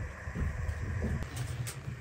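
A steady low rumble with a few faint taps and clicks as tomatoes and pepper rings are set into an aluminium pot by hand.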